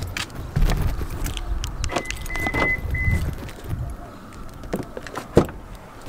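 Subaru WRX driver's door being unlatched and opened by its handle: clicks and low thumps with a jangling key ring in the hand. A high electronic beep sounds about two seconds in, with a short second beep after a brief break.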